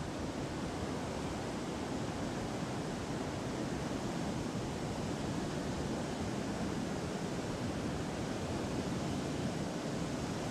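River water pouring over a low dam spillway and churning below it: a steady, unbroken rushing.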